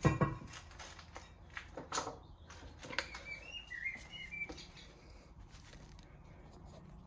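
A sharp metallic knock, then a few lighter knocks and clinks as parts are handled at a car's front wheel hub. A small bird chirps briefly in the middle.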